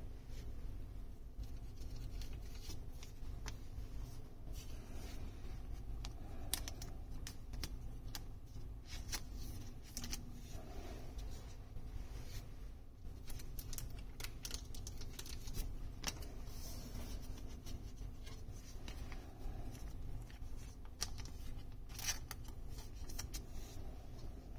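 Trading cards being handled and slid into soft clear plastic sleeves: irregular small rustles, crinkles and clicks of plastic and card, over a low steady hum.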